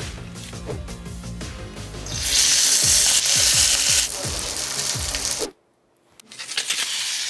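Steak sizzling loudly as it is laid into hot oil in a frying pan, over background music. The sizzle starts about two seconds in and cuts out suddenly about five and a half seconds in.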